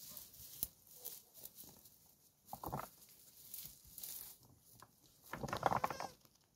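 Young goats bleating twice, a short call about two and a half seconds in and a longer, louder one near the end. Light patter and rustle of hooves on rocks and dry brush between the calls.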